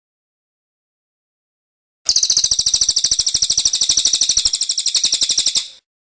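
Silence, then about two seconds in a songbird from a bird-song tutoring track starts a very fast, high, evenly repeated chattering trill. The trill lasts nearly four seconds and stops abruptly.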